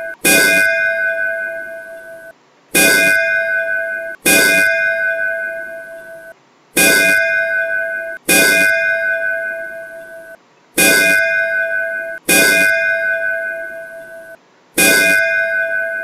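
A recorded temple bell played by a computerized automatic school bell as the warning bell. It is struck in pairs about one and a half seconds apart, the pairs repeating every four seconds. Each strike rings a clear steady tone and fades, and the second ring of each pair stops abruptly as the sound file loops.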